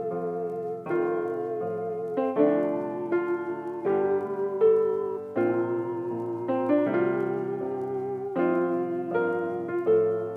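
Soft background piano music: slow chords that change every second or so, fading out near the end.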